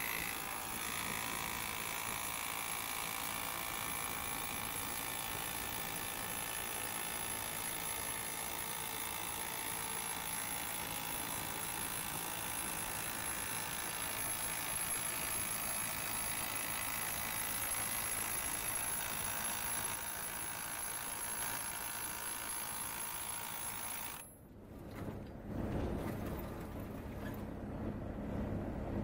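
Drill rig running steadily, with a metallic ringing and a high thin whine. About 24 seconds in it cuts off abruptly, and a lower rumble with wind on the microphone follows.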